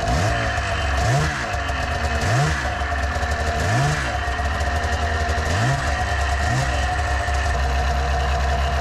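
1999 Arctic Cat ZR600's two-stroke twin engine idling and revved in about six quick throttle blips, each rising and falling back within a second.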